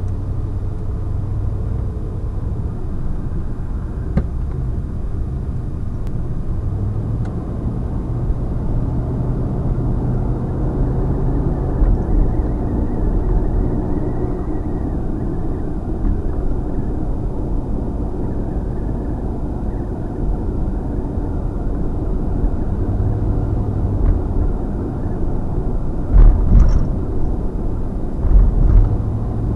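Road and engine noise of a moving vehicle heard from inside the cabin: a steady low rumble with an engine hum that shifts in pitch now and then. Two louder thumps come near the end.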